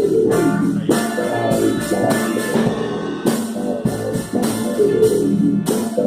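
Rock band playing: guitars over a drum kit, with cymbal hits about once a second.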